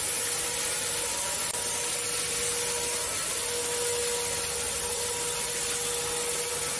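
Corded electric handheld disinfectant sprayer (fogger) running steadily: the rushing blower noise of its motor with a constant whine under it.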